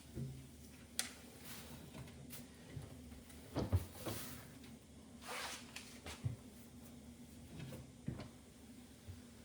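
Light knocks and clicks of refrigerator shelves and drawers being handled, with short rustles of shelf-liner paper, over a steady low hum.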